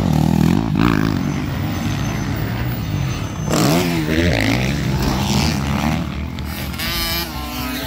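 Motocross dirt bike engines revving up and down, their pitch rising and falling sharply about halfway through as a bike accelerates.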